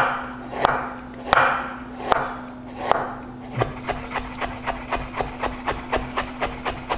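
Chef's knife cutting fresh ginger into julienne strips on a wooden cutting board. A few slow slicing strokes, each with a short swish, give way about halfway through to fast, even knocks of the blade on the board, about four a second.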